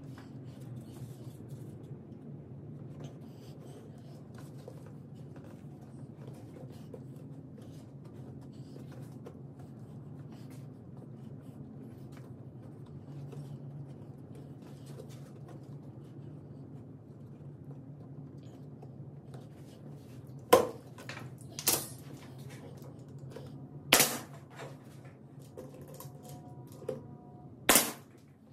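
A steady low hum with faint light ticks, then four sharp, loud bangs spread over the last eight seconds or so.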